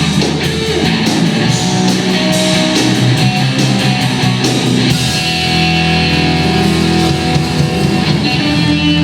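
A blues-rock band playing live, with electric guitar over drums. The drum hits stop about halfway through, and a held chord rings on.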